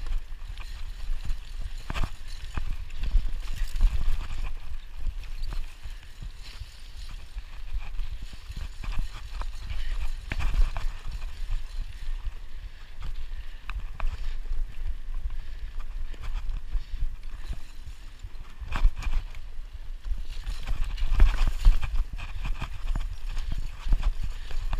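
Mountain bike riding over a bumpy dirt trail: irregular knocks and rattles from the bike at each bump over a steady low rumble, with louder clusters of knocks several times.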